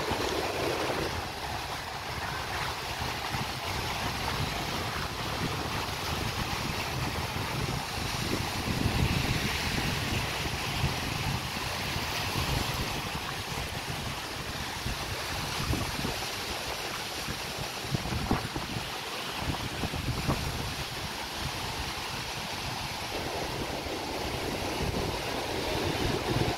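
Waves washing onto a sandy beach, with wind buffeting the microphone in irregular low gusts.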